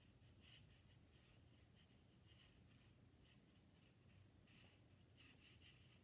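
Faint, short scratchy strokes of a fine liner (rigger) brush dabbing paint onto watercolor paper, one every second or so, over near silence.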